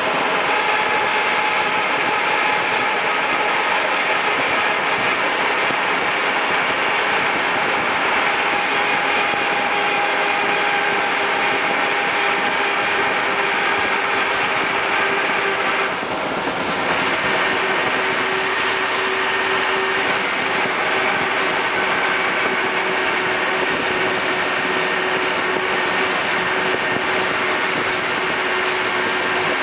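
Land Rover Defender 110 in motion: continuous drivetrain and road noise with several steady whining tones and a fine rattling clatter, the annoying noise the owner is recording. The level dips briefly about sixteen seconds in.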